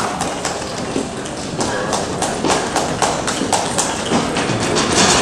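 Scattered hand clapping from a small crowd in a large hall, irregular claps with some voices mixed in, after a point ends.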